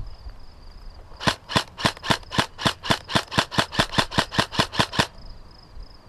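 Airsoft rifle firing a quick string of about sixteen single shots, roughly four a second, stopping about a second before the end. A steady high insect trill runs underneath.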